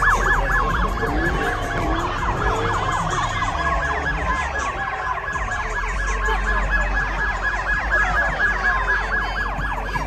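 A siren sounding in a fast, pulsing yelp, with lower wavering squeals beneath it.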